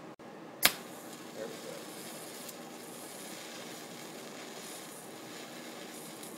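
TIG welding arc: a sharp crack as the arc strikes about two thirds of a second in, then a steady hiss while the weld runs.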